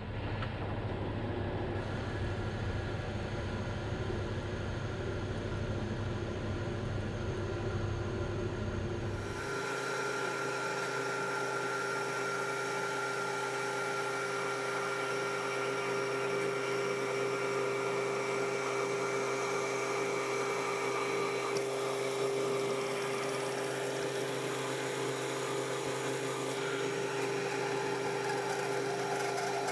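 Metal lathe running under power feed while single-point cutting an 8 TPI thread along a long shaft. The steady machine sound changes character about nine seconds in, losing its low hum while a few steady higher tones come up.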